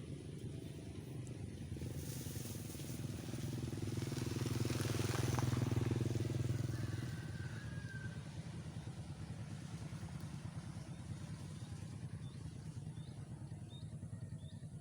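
A motor vehicle's engine passes by, growing louder over a few seconds and then fading away, over a steady low engine hum with a fast, even pulse. Faint short chirps are heard near the end.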